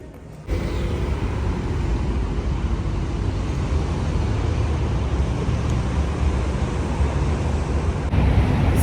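A car being driven: steady road and engine rumble that starts suddenly about half a second in.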